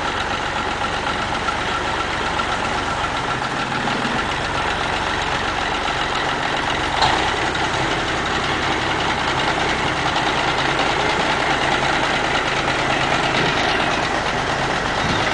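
A semi-truck tractor's diesel engine running steadily at low revs while the rig creeps forward under its billboard load, with one brief clank about halfway through.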